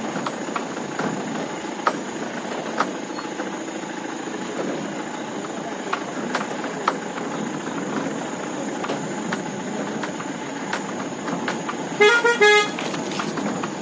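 Mahindra Bolero pickup's diesel engine running as the truck rattles and knocks over a rough dirt track, then two short horn toots near the end.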